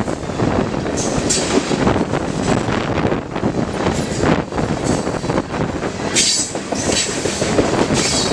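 Freight train of steel-wheeled hopper cars rolling past close by: a continuous loud rumble of wheels on rail, with rapid clacking over the rail joints. Brief high-pitched wheel squeals come several times.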